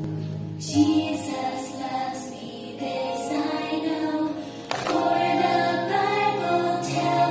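A group of voices singing a children's action song together over instrumental accompaniment; held chord tones give way to the sung melody about a second in, with a single short click near the middle.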